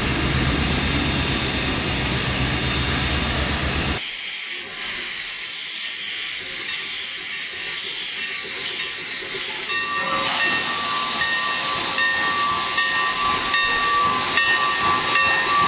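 Shay geared steam locomotive hissing steam steadily. A low rumble lies under the hiss for the first four seconds and stops abruptly at a cut. About ten seconds in, thin steady whistling tones join the hiss.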